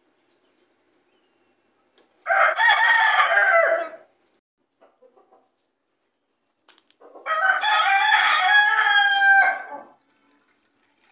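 Rooster crowing twice: a shorter crow about two seconds in, then a longer one about seven seconds in.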